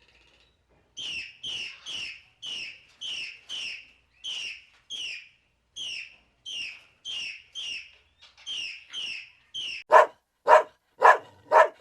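A bird chirps in a steady series of short high calls, about two a second. Near the end a dog barks five times, louder and lower.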